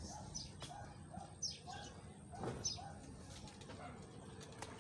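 Small birds chirping faintly, short high downward-slurred notes repeated about every half second, over a low background murmur.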